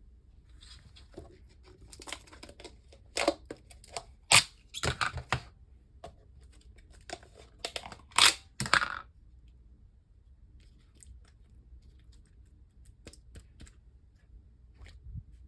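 Plastic slime container and slime being handled: a run of sharp clicks, crackles and crinkling that is busiest in the first nine seconds, then a few scattered clicks, with one more sharp click near the end.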